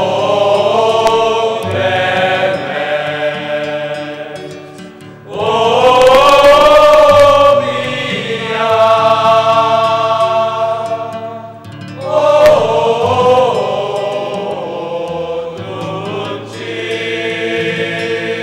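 Male choir singing in parts, in long held chords. Louder phrases come in about five and twelve seconds in.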